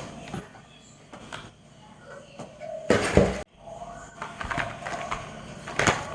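Handling noises from unboxing computer parts: scattered clicks and rustles of packaging. A louder burst about three seconds in cuts off suddenly.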